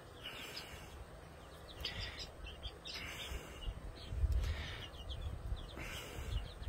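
Three-week-old chicks peeping: a scatter of short, high chirps, some sliding in pitch, over a low rumble that swells about four seconds in.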